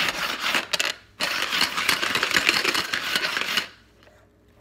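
Casino dice rattling and clicking inside a dice cup as it is swept and spun across a hardwood floor to stack them. There are two spells of rattling, a short one stopping about a second in and a longer one of about two and a half seconds, then it stops.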